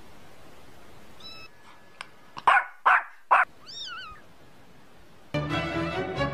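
Kitten mewing: three short, loud cries about two and a half seconds in, then a single high-pitched mew that rises and falls. Music with a bass line comes in near the end.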